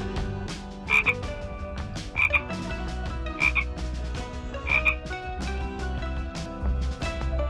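A frog croak repeats four times, about once every second and a quarter, over background music.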